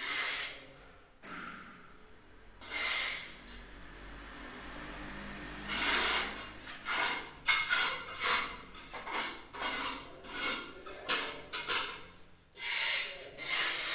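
A series of short rubbing, scraping strokes, a few slow ones at first, then about two a second through the second half.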